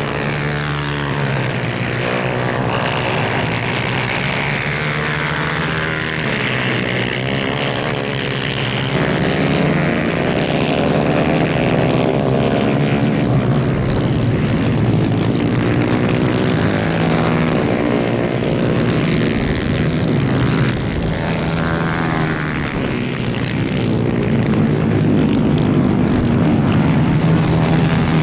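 Several 250cc two-stroke superkart engines racing together, their pitch rising and falling as they rev through gears and corners. The sound gets louder about a third of the way in and again near the end.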